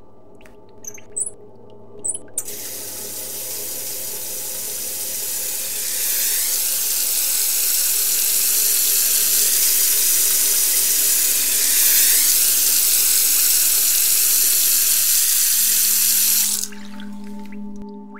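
Water running from a tap into a sink. It starts about two seconds in after two short high squeaks, gets louder about six seconds in, and cuts off suddenly near the end.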